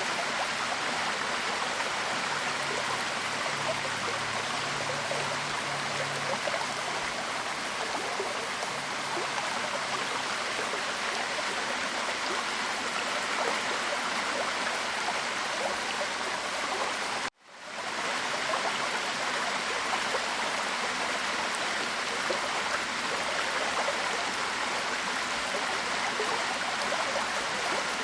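Waterfall: a steady, dense rush of falling water. It cuts out abruptly for a moment about 17 seconds in, then swells straight back.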